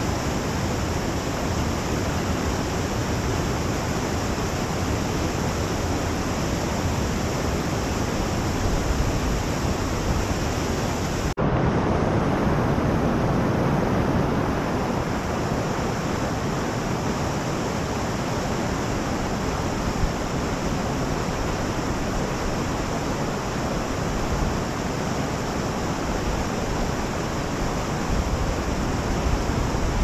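Steady rush of water from the Ras el Ma spring pouring into the Fouara river. The sound shifts abruptly about a third of the way in.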